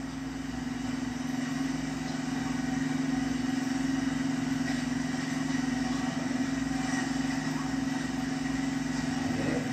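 A steady engine drone with an even, unchanging pitch, heard through a television's speaker.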